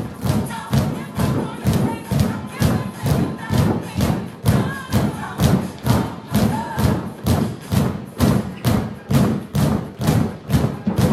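Drumsticks beating on inflated exercise balls in a steady rhythm, a dull thump about two to three times a second, with upbeat music playing underneath.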